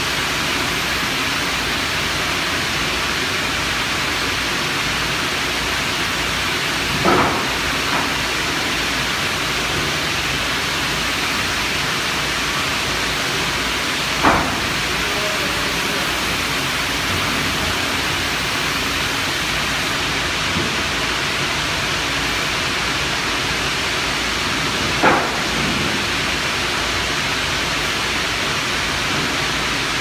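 Steady, loud industrial hiss filling the plant, broken by three brief clanks about seven, fourteen and twenty-five seconds in.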